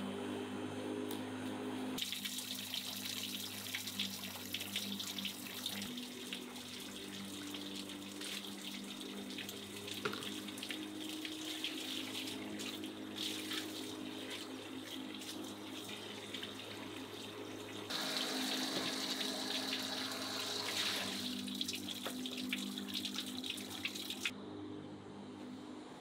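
Water running from a tap and splashing in a sink as raw chicken is rinsed under it, getting louder about two-thirds of the way through and stopping shortly before the end. For the first two seconds, an electric lawn mower's motor hums instead.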